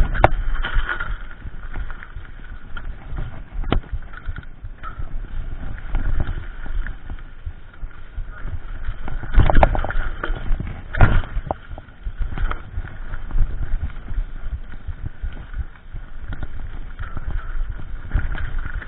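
Mountain bike rattling and jolting down a dirt singletrack, tyres rumbling over the ground and the bike clattering over bumps, with two harder jolts a second and a half apart about halfway through.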